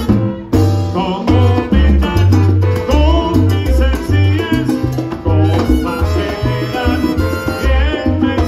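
Live salsa band playing, with a prominent upright bass line under the melody.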